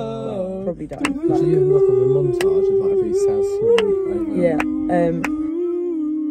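Two voices, one low and one high, singing long drawn-out notes together, with a short break about a second in.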